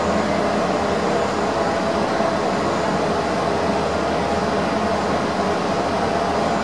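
Rome Metro Line C train running along its track, heard from inside the car: a steady rolling and running noise with a faint hum.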